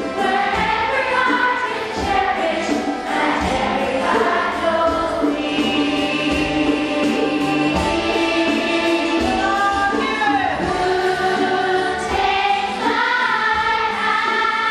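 Large children's choir singing in unison with a live band, a steady drum beat under the voices.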